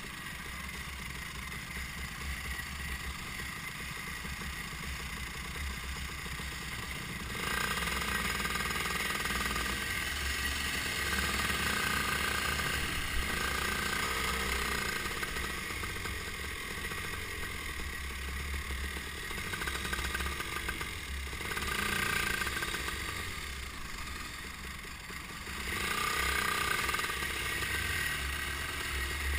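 Racing kart's engine heard from on board while lapping, its note rising and falling through the corners and louder in stretches about seven seconds in and again near the end as it accelerates, with other karts' engines close by.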